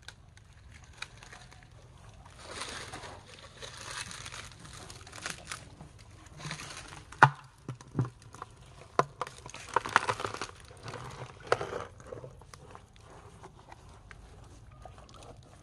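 Asian elephant biting and chewing a coconut: a string of sharp cracks and crunches as the shell gives way, the loudest about seven seconds in, among rustling hiss.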